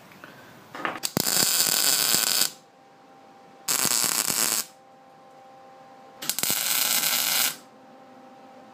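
Electric arc welding on steel: three short tack welds, each a crackling burst of about a second, starting with sharp clicks and cutting off abruptly.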